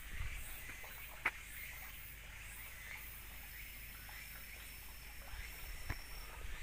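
A few soft footsteps on a paved path over quiet outdoor background, with one sharp click about a second in and a thin, high steady whine in the second half.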